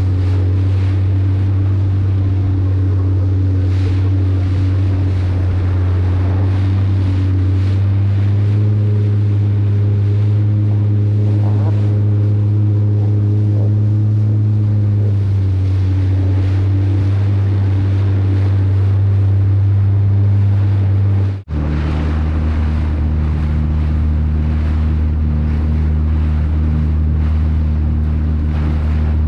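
Motorboat engine running steadily under way, with wind on the microphone and water noise. The engine note rises slightly about eight seconds in and settles back around fifteen seconds. After a brief drop-out a little past twenty seconds, a lower, steady engine note follows.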